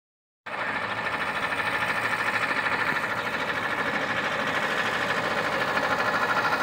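Old tractor engines running as a column of vintage tractors drives toward the microphone, with a fast, even pulse. The sound starts suddenly about half a second in.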